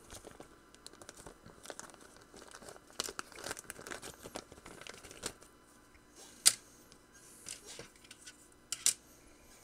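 A plastic anti-static parts bag crinkling and crackling as it is handled and opened, followed by a sharp click about six and a half seconds in and a quick double click near the end.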